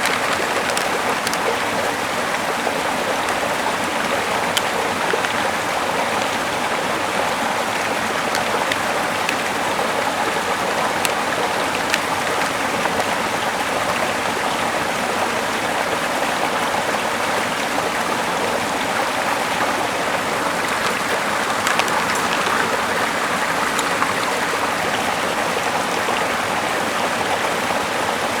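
Steady rushing of running water, unchanging throughout, with a few faint clicks.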